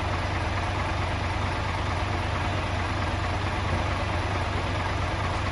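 Fire engine's engine running steadily at the scene, a constant low hum under an even hiss.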